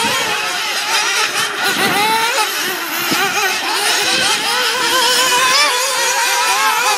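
Several 1/8-scale nitro buggies' small two-stroke glow engines revving and easing off as they race, their overlapping pitches rising and falling the whole time.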